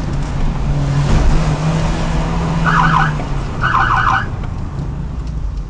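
Police patrol car driving, its engine and road noise heard from inside the cabin, with two short bursts of its siren's fast warble about three and four seconds in, calling the motorcyclist ahead to stop.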